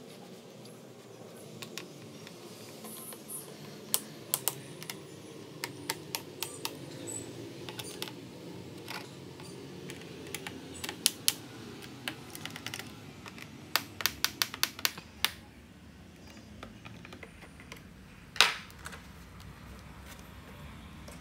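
Screwdriver working the bottom-cover screws of a Lenovo ThinkPad E15 Gen 2: scattered small, sharp clicks of the metal tip on the screws and the plastic panel, in several short clusters, with one louder knock near the end.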